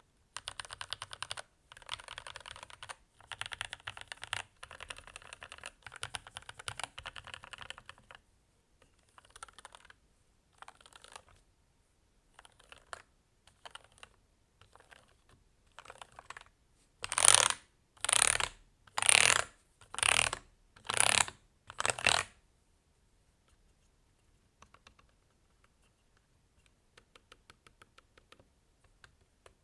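Keys of a Keychron K8 mechanical keyboard with lubed Gateron Red linear switches being typed on, in fast continuous runs at first, then sparser keystrokes. About two thirds of the way in come six loud bursts of rapid clatter, about a second apart, and a few faint scattered key clicks follow near the end.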